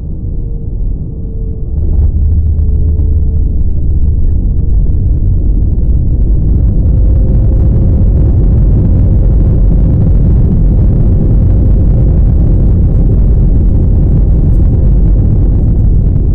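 Airbus A320 landing, heard from inside the cabin. The level jumps suddenly about two seconds in, most likely the main wheels touching down, and a heavy rumble of the wheels on the runway follows. From about six seconds in, a louder rush of engine reverse thrust builds and holds, then thins near the end as the aircraft slows.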